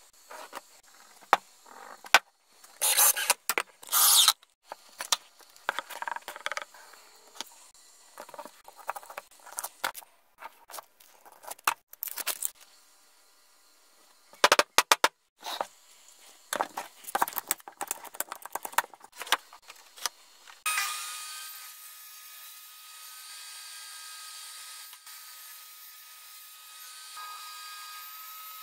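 Sharp clicks, knocks and scrapes of a plastic set square, pencil and wood blocks being handled and positioned on a cutting mat. About two-thirds of the way through, a table saw starts and runs steadily with a high whine, quieter than the knocks.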